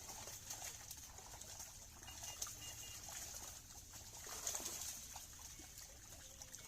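Faint outdoor ambience: a steady high-pitched insect drone, with scattered light taps and a low rumble underneath.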